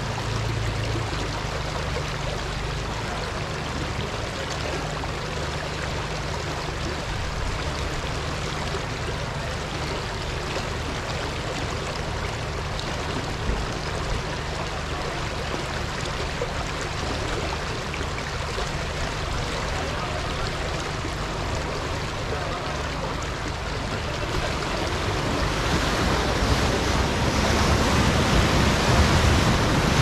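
Rushing river water, a steady even noise with a low hum underneath, growing louder over the last few seconds.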